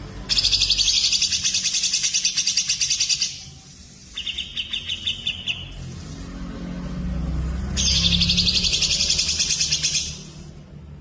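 Songbird song from a masteran recording of cucak jenggot, cililin and canary: two long bursts of very fast, high-pitched trilling, with a shorter, lower chattering phrase between them.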